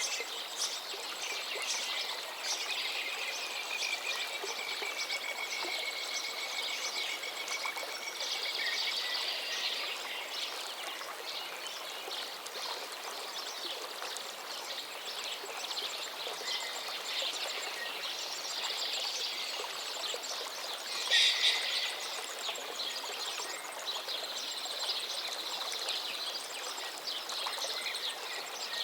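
Steady rushing of a waterfall, with birds calling over it and one louder call about two-thirds of the way through.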